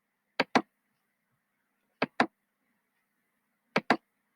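Computer mouse clicking: three pairs of short, sharp clicks, the two in each pair a fraction of a second apart, about a second and a half between pairs.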